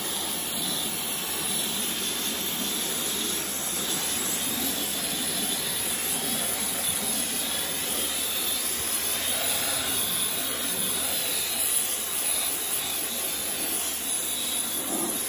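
Karcher K3 Power Control electric pressure washer running, its high-pressure water jet spraying steadily into a car's wheel arch and onto the tyre to blast off mud: a continuous loud hiss.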